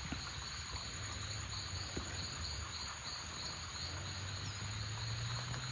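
Insects chirping steadily in a rapid, even pulse, with a constant high whine above it and a low rumble underneath.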